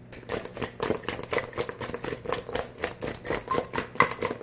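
Sauced chicken wings being tossed in a stainless steel mixing bowl, tumbling and knocking against the metal in a quick, uneven run of rattling clicks, several a second.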